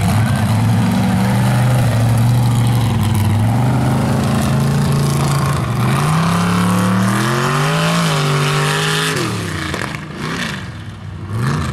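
Mega truck's engine running hard, then revving up for several seconds and falling off sharply about nine seconds in; it eases back and picks up again near the end.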